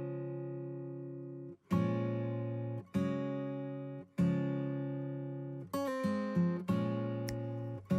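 Background music: acoustic guitar strumming chords, one about every second, each ringing out, with a quicker flurry of strums about six seconds in.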